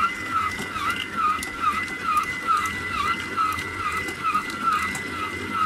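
Aobosi 6L stand mixer running at speed 3, its dough hook kneading bread dough: a steady motor whine with a regular wobbling pulse about three times a second.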